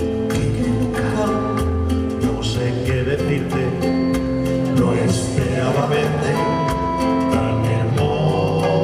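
Live band playing an instrumental passage: acoustic guitars over an upright double bass and light percussion, with no vocals.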